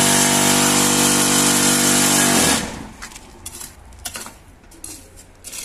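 Electric vibrator motors on a concrete-block making machine running with a steady loud hum, shaking the concrete mix down into the mould, then switched off about two and a half seconds in and winding down. A few faint scrapes follow as a metal bar spreads the mix across the mould.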